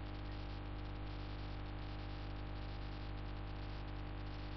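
Steady electrical mains hum with a low hiss, the background noise of the voice recording, with no other sound.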